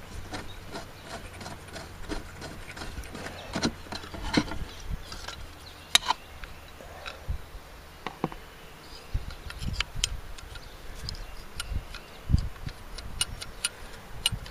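Irregular clicks and light knocks, with an occasional dull thump, of a compound miter saw's fence and its bolts being handled and lifted off the saw's aluminium base.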